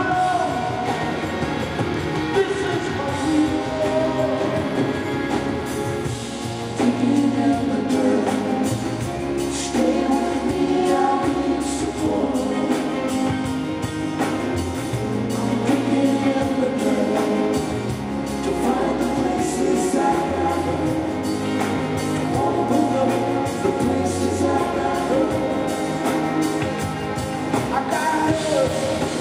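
Live rock band playing with a male lead vocal singing over it, heard from among the audience in a large arena.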